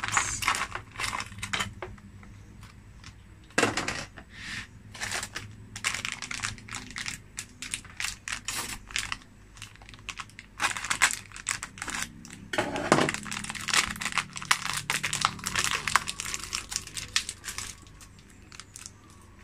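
Plastic food packaging crinkling and rustling as it is handled and emptied, with a steady scatter of irregular small clicks and a couple of louder knocks.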